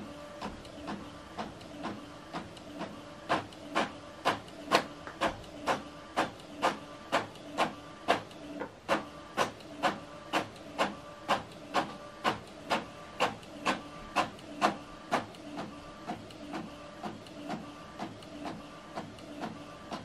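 Epson EcoTank ET-4850 inkjet printer printing a page: a steady mechanical hum from its motors with sharp, regular clicks about two a second as the print head shuttles across the sheet.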